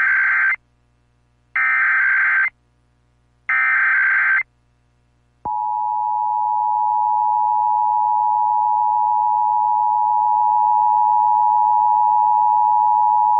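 An EAS alert opening: three one-second bursts of the SAME header's warbling digital data tones, about a second apart. About five and a half seconds in, the steady two-tone attention signal (853 and 960 Hz) starts and sounds on.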